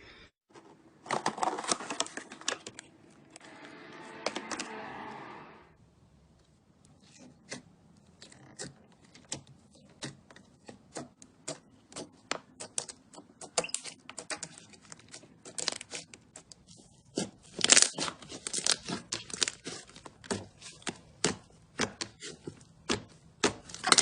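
Slime being pressed and squeezed by hand, with a long run of sharp crackling pops and clicks. The pops come thick and fast in the second half.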